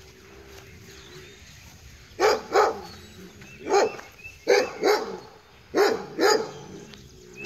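A dog barking: seven sharp barks, mostly in quick pairs, starting about two seconds in.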